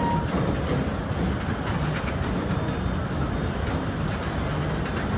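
Crawler tracks of a bucket wheel excavator travelling: a steady low rumble of the heavy track plates and rollers, with a brief squeak right at the start.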